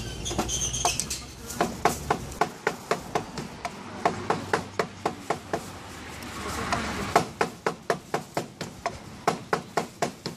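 Cleaver chopping cooked pork head meat on a cutting board: a steady run of sharp knocks, about three a second.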